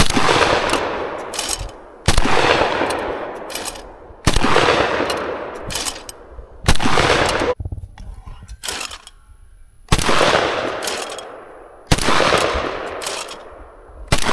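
Shotgun firing a string of six shots at clay targets, about two seconds apart with one longer pause in the middle. Each shot trails off over a second or so.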